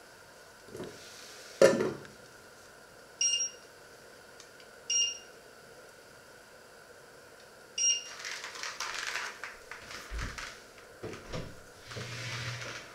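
A sharp knock, then three short electronic beeps from a glass-ceramic hob's touch controls as a setting is keyed in, spaced a second or more apart. After that, irregular rustling and light knocks.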